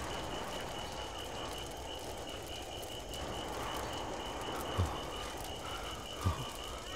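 Steady night ambience of a chorus of night creatures, with a high trill pulsing at an even rate. Two brief soft low sounds come near the end.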